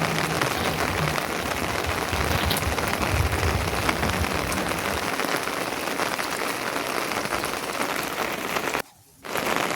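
Steady rain falling, an even hiss with fine patter of drops; the sound drops out abruptly for about half a second near the end.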